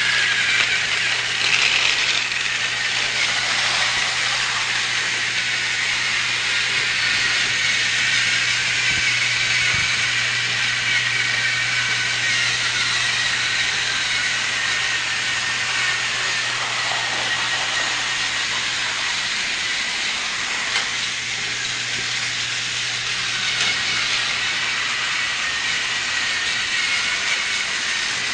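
Small battery-powered TrackMaster toy train motor and plastic gears running steadily, a continuous whirring hiss over a low hum.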